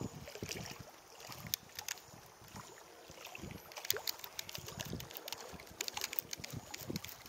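Small waves lapping and splashing against the boat or shore, with scattered light clicks and low knocks at irregular intervals.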